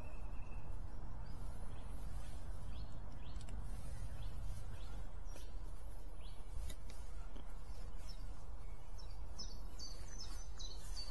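Birds chirping over a steady low rumble of outdoor background noise, with a quick run of short, high, falling chirps near the end.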